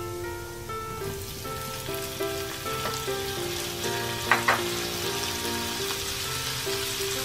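Butter and minced garlic sizzling in a frying pan; the sizzle grows louder about a second in as vegetables are tipped in. Two sharp clicks sound a little past halfway.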